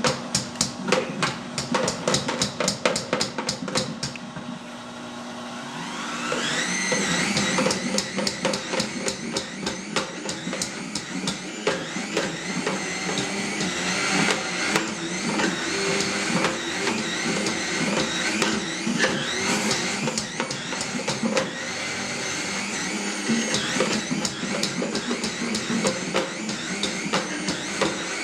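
High-speed blender running on thick nut cheese while a tamper pushes the mixture into the blades. A fast, even ticking fills the first four seconds; after that the motor whine wavers up and down in pitch as the load changes.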